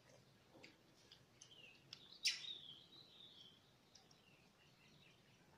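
Near silence with a few faint clicks and one short high chirp, falling slightly in pitch, a little over two seconds in.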